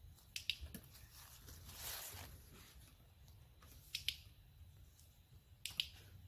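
Faint sharp clicks in three short groups, each of two or three clicks: about half a second in, at four seconds and just under six seconds. A brief soft rustle comes near two seconds in.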